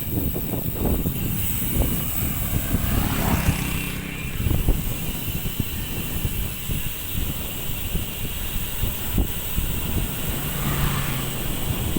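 Vehicle running along the road with heavy wind noise buffeting the microphone; an engine's steady hum comes through briefly a few seconds in and again near the end.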